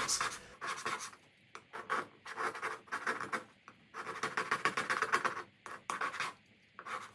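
Putty knife scraping latex paint off plywood in quick, short strokes that come in runs with brief pauses. The paint was treated with vinegar and is only slightly softened, so it comes off hard.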